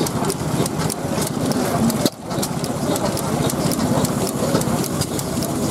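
A 1906 Fairbanks Morse 2 hp vertical engine with low-tension, friction-drive igniter ignition running, with a fast, uneven clatter of clicks over its beat. There is a brief drop in the sound about two seconds in.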